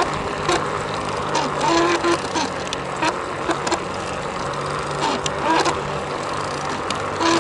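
Bafang BBSHD mid-drive e-bike motor running under power while being pedalled, giving the strange intermittent noise: short whining tones that come and go, with scattered clicks over a steady hum and riding noise. The owner cannot tell whether the gearing or the controller's programming is to blame.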